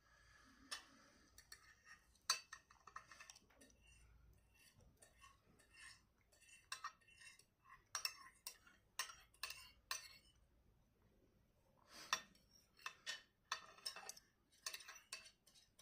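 Soft, irregular clicks and clinks of cutlery against a plate while eating, pausing briefly about ten seconds in.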